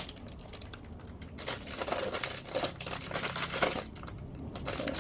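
Plastic packaging crinkling and rustling in intermittent bursts as a squishy toy in its wrapper is handled.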